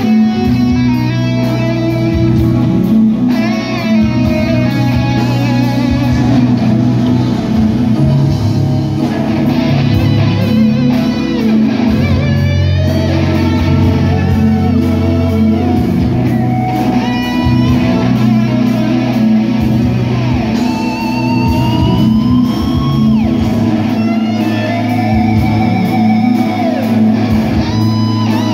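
Live rock band with an electric guitar playing lead: quick runs of notes and held notes bent up and down in pitch, over bass guitar and drums.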